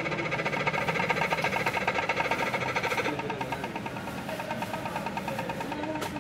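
Cartoon soundtrack played from computer speakers: a fast, evenly pulsing, engine-like rumble, strongest for the first three seconds and then weaker.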